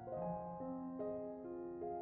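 Background music: a soft piano melody, single notes changing every half second or so over held lower notes.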